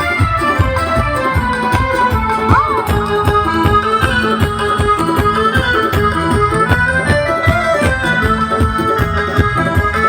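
Music with a keyboard melody in an organ-like tone over a steady drum beat, with a short sliding note about two and a half seconds in.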